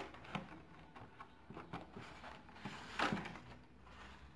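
Hot Wheels blister-pack cards being pulled from a cardboard case and handled: light clicks and crinkles of plastic and card, with a louder rustle about three seconds in.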